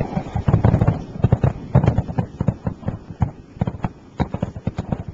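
Aerial fireworks display: a rapid, irregular string of bangs and crackling pops from bursting shells.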